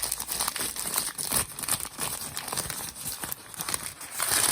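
Packaging being crumpled and pulled open by hand: an irregular run of crinkling and rustling, with a denser burst near the end.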